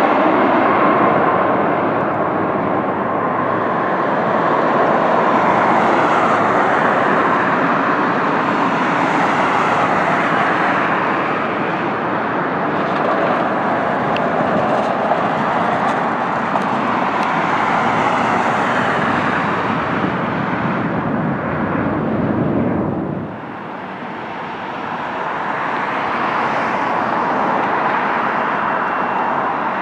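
Jet airliner engines on landing approach and touchdown: a loud, continuous rush of jet noise, with a steady fan whine in the first few seconds. About 23 seconds in the sound cuts and drops, then builds gradually as a Boeing 737-8, with its CFM LEAP-1B turbofans, comes in on final approach.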